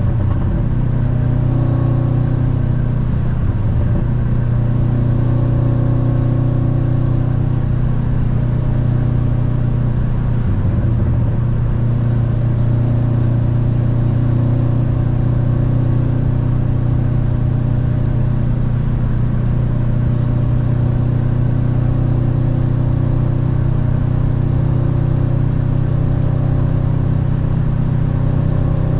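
Subaru WRX STI's turbocharged flat-four with an Invidia exhaust, droning steadily at autobahn cruising speed, heard from inside the cabin. The engine note dips briefly twice, about three and ten seconds in.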